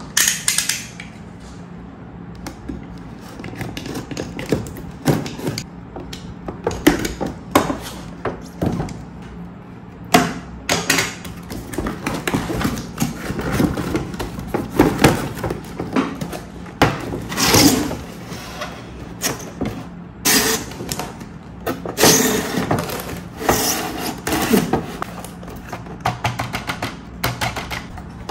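Cardboard toy box with a plastic window being handled and opened by hand: irregular rustling, scraping and knocks of cardboard and plastic, over a faint steady low hum.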